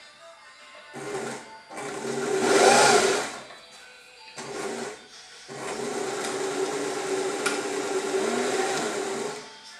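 Adler 1217 sewing machine stitching a test seam after a service, in several starts and stops: two short runs early, the loudest about three seconds in, a brief one near the middle, then a steady run of about four seconds that stops just before the end.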